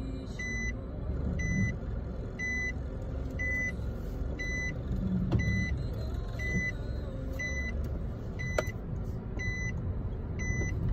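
A car's in-cabin reverse-gear warning beeper, a short high beep repeating about once a second, sounding because reverse is engaged. Under it runs the low rumble of the engine and tyres as the car moves.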